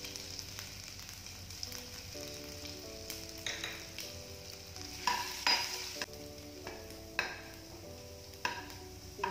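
Cumin seeds and chopped ginger sizzling steadily in hot oil in a kadai, with a spatula scraping and stirring the pan several times in the second half.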